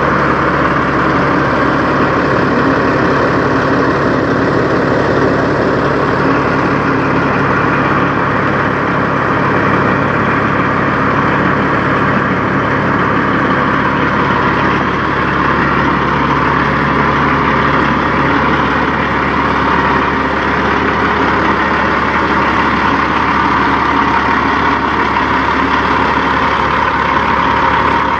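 Peterbilt semi tractor's diesel engine idling steadily, heard up close.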